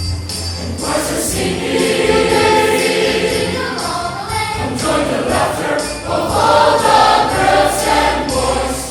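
A choir singing a Christmas anthem over an instrumental accompaniment with jingle bells, the voices coming in about a second in.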